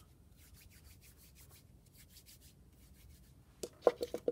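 Fingers rubbing and smoothing damp clay along the seam of a slab-built vase in short repeated strokes that fade out in the first couple of seconds. Near the end comes a sharp knock, then a quick run of taps.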